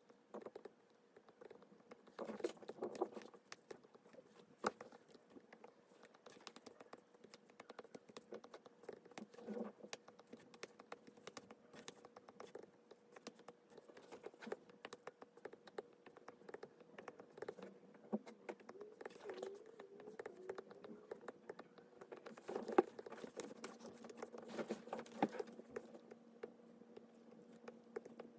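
Stylus tip tapping and scratching against a tablet's glass screen in quick, irregular, faint strokes while colouring. A faint steady hum runs underneath, joined by a lower hum near the end.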